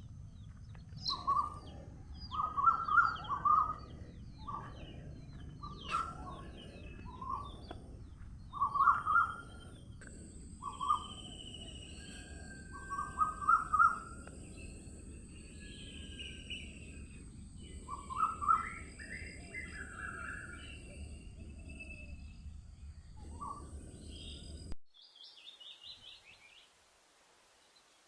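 Several birds singing and calling in short, repeated chirping phrases over a steady low background noise, with a thin steady high tone through the middle. Near the end the background cuts off suddenly, leaving a few seconds of near silence with only a couple of high chirps.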